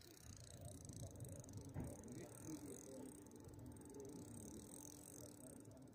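Faint, rapid ticking of a fishing reel's ratchet as a fish pulls line off it.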